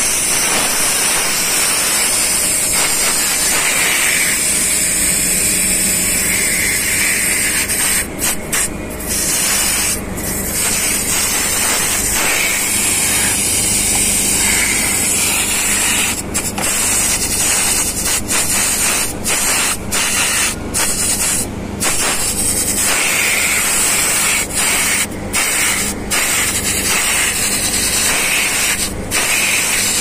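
Refrigerant gas from an R-22 cylinder rushing through a window AC condenser coil during a flush: a loud, steady hiss as the gas blows dirt and oil out of the tubes. The hiss is cut off briefly again and again as a hand closes the outlet pipe.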